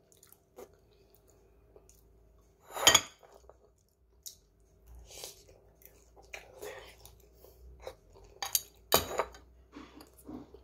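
Close-up mouth sounds of someone chewing a forkful of ham, mixed with a few sharp clinks of a metal fork against a ceramic bowl. The loudest clink comes about three seconds in, and two more come near the end.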